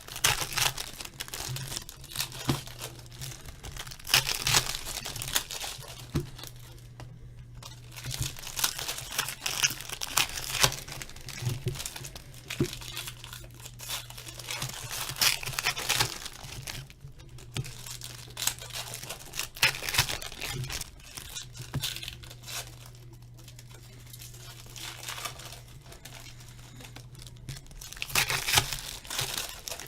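Hockey card pack wrappers being torn open and crinkled, with the cards handled, in irregular bursts of rustling. A steady low hum runs underneath.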